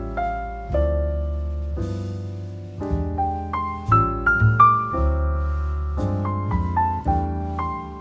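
Background solo piano music: a slow melody of single struck notes over low bass notes.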